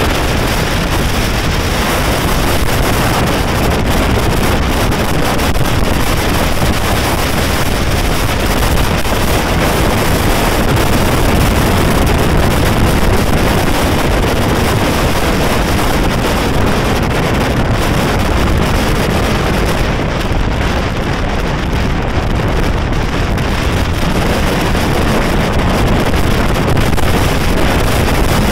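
Steady wind noise on the microphone while riding at speed, with the running of motorcycles mixed in underneath.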